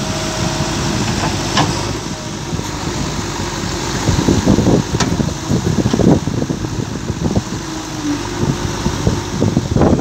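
JCB 3DX backhoe loader's diesel engine running while the backhoe digs in a riverbed, with water rushing around the machine; the sound grows heavier and more uneven from about four seconds in.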